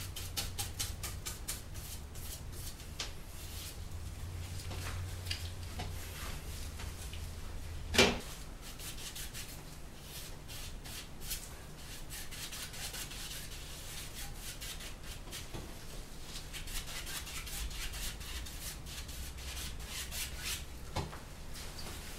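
Paintbrush scrubbing oil paint onto a stretched canvas in quick, repeated strokes, with one sharp knock about eight seconds in and a low hum during the first third.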